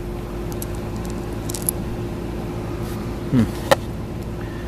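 Steady background buzzing hum, with a few light clicks and a sharper click past three seconds in from small carburetor parts being handled.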